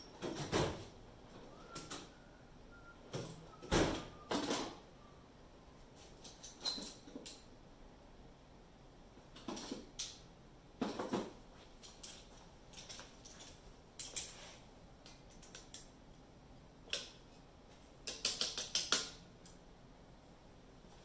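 Intermittent clinks, knocks and scrapes of hand tools worked against the metal of an engine block, about a dozen separate strikes with a short metallic ring about two seconds in and a quick rattling run of ticks near the end.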